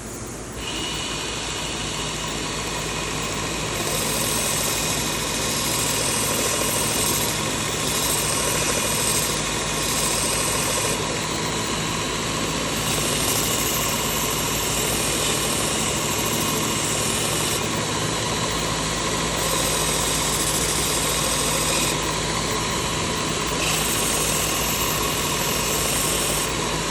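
Work Sharp Ken Onion belt sharpener running with a 600-grit belt, its motor giving a steady hum that steps up about half a second in. Over it, a hiss of the carbon-steel blade grinding on the belt comes and goes as the knife is drawn through in passes of a few seconds each.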